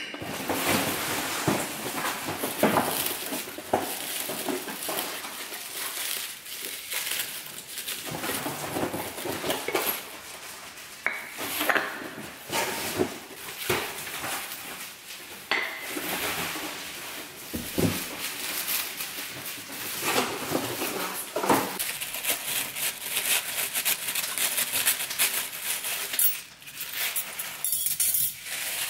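Honeycomb kraft paper packing rustling and crinkling as glass storage jars are unwrapped, with clinks of glass on glass and on the tabletop. Near the end, metal cutlery clinks as it is laid down.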